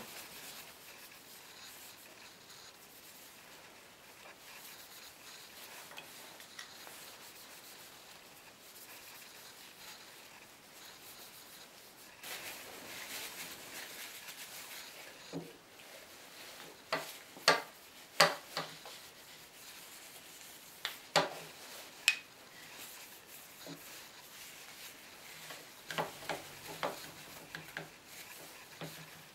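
A cloth rubbing linseed oil into the wooden parts of an antique plough plane. In the second half come sharp wooden knocks and clacks as the parts are handled and set down on the workbench.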